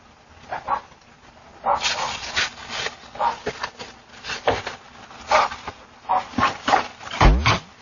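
A dog barking repeatedly, often two barks in quick succession, about a dozen barks in all.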